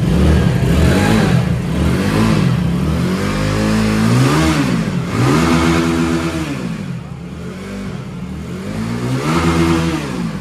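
Benelli TRK 251's single-cylinder engine running just after start-up and revved several times, its pitch rising and falling with each blip of the throttle.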